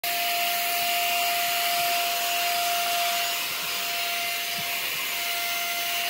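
Brigii M1 mini handheld vacuum running steadily as its crevice nozzle is drawn over a dusty shelf: a high airy hiss of suction with a thin steady motor whine.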